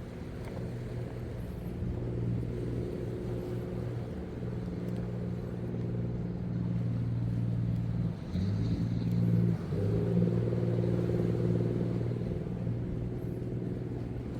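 An engine running steadily, its pitch dipping briefly about eight seconds in and again a little later.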